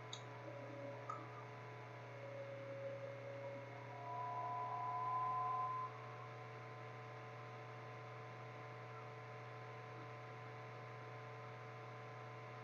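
Steady low electrical hum, with a few faint steady tones above it that swell briefly about two to six seconds in.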